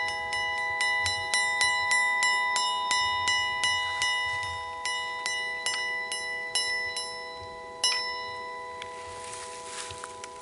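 A bell struck in quick repeated strokes, about three a second, its tones ringing on under the strikes. The striking stops about seven seconds in, with one last strike near eight seconds, and the ring fades away.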